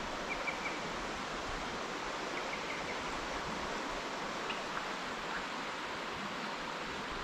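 Shallow river rushing steadily over a riffle, with a few faint high chirps.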